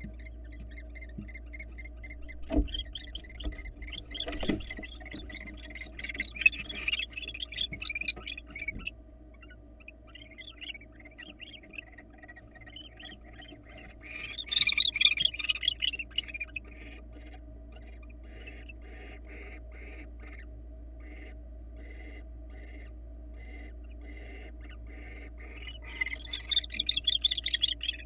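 Barn owls calling inside a nest box, in rapid high twittering chatter that comes in three bursts: one from about two to nine seconds in, one at about fifteen seconds and one near the end. Between the later bursts a softer call repeats about twice a second. There are two thumps early on, and a steady electrical hum runs underneath.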